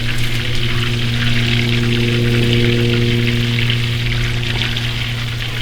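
Pork-rind-breaded cube steak frying in hot oil, a steady crackling sizzle, with a steady low hum underneath.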